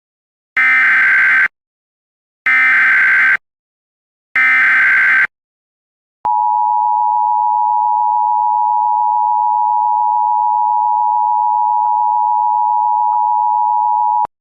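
Emergency Alert System header: three short bursts of SAME digital data tones, each just under a second, then the two-tone EAS attention signal, a steady dual-pitched tone held for about eight seconds.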